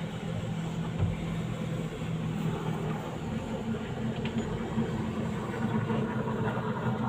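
Engine running with a steady low hum, and a faint knock about a second in.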